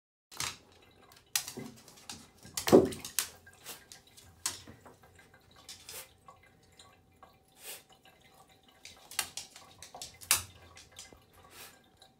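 A bath bomb in a tub of water: a loud plop nearly three seconds in, then scattered drips, small splashes and knocks as it fizzes.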